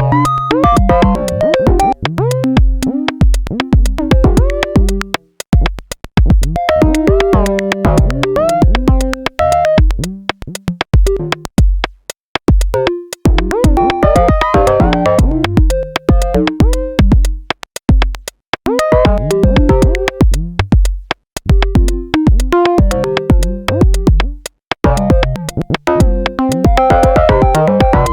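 A generative electronic patch on the VCV Rack software modular synthesizer. Short quantized synth notes at shifting random pitches, some gliding downward, play over a drum-machine kick pattern with clicky percussion. The sound drops out briefly a few times.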